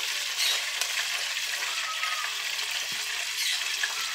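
French fries frying in a small pot of hot oil, a steady sizzling hiss, with a few light clicks of metal utensils as the fries are scooped out with a skimmer.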